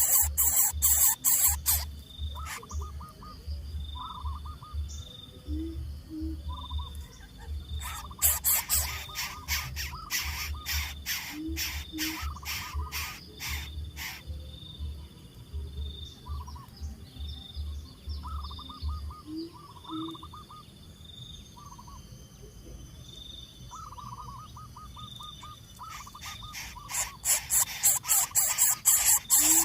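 Wild bird calls and insects: short trilled calls repeat every second or two, and a low two-note hoot comes every five or six seconds. A faint insect-like tone pulses steadily throughout. Bursts of rapid clicking or rustling come at the start, again from about eight to fourteen seconds, and near the end.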